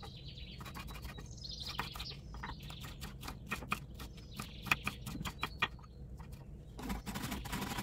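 Small birds chirping in the background over a quick series of sharp clicks and taps; a steady hiss comes in near the end.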